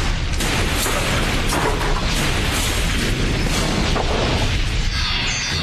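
Loud, continuous rumbling and crashing of a cave-in, with rubble and debris coming down.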